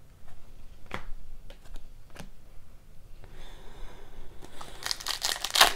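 A few light clicks of hockey cards being handled, then a foil trading-card pack wrapper crinkling loudly from about five seconds in as it is picked up and torn open.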